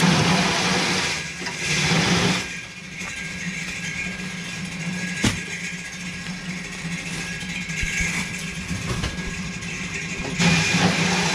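An engine running steadily, with louder rushing surges near the start and near the end, and a single sharp knock about five seconds in.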